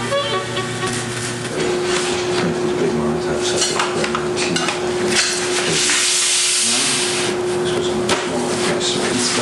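Sheets of printing paper being handled and laid on the steel bed of a printing press: rustling, light knocks and clicks, with a longer sliding rustle about six seconds in. A steady hum runs underneath.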